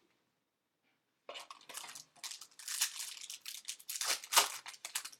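Trading cards and their packaging being handled: irregular rustling and crinkling that begins after about a second of near silence, with louder crackles about midway and again near the end.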